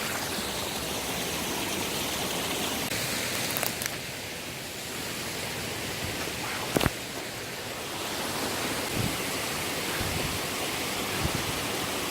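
Steady rush of a stream and waterfall, with a couple of sharp clicks, the louder one a little past halfway.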